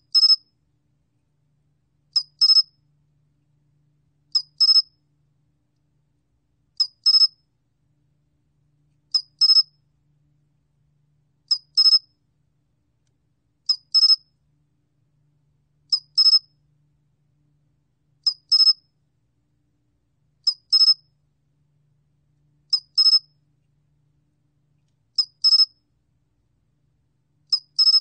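Sol cricket (솔귀뚜라미) singing, recorded at 21 °C: short high-pitched chirps, each a quick pair of pulses, repeating steadily about every two and a quarter seconds.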